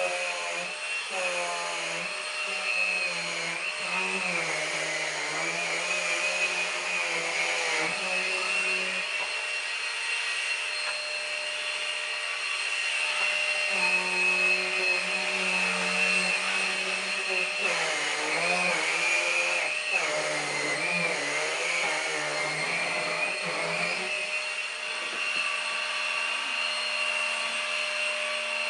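Numatic Henry Quick cordless vacuum cleaner running as its head is worked over sofa upholstery: a steady high whine over a lower hum that wavers up and down in pitch.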